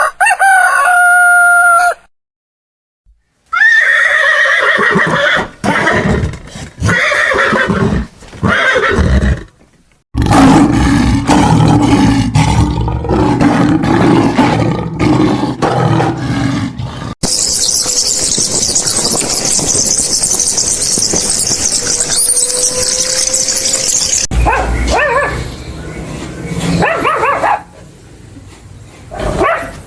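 Horses neighing and whinnying in a run of short cut-together clips, with a loud noisy stretch in the middle and a steady high hiss lasting several seconds.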